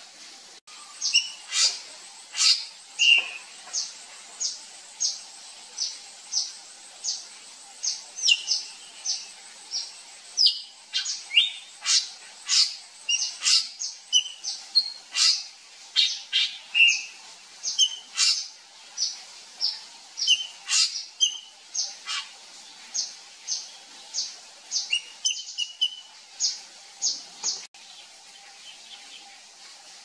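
Drongo calling: a long run of short, sharp, high notes, about two a second, some followed by a lower note, stopping a couple of seconds before the end.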